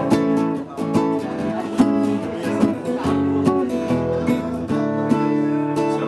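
Acoustic guitar strumming chords, a song's instrumental introduction.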